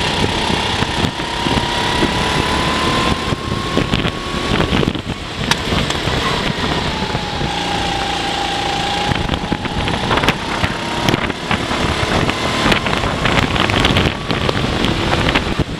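Go-kart engine running flat out on track, its pitch climbing slowly, dropping about six seconds in and staying low for a few seconds, then climbing again as the kart speeds up out of the corner.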